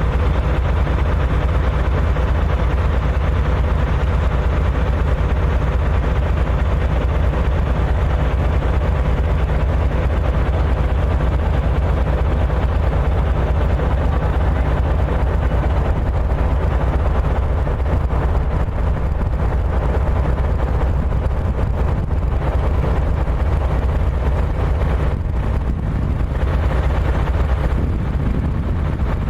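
A loud, steady low rumble of a running vehicle, starting abruptly just before and holding even throughout.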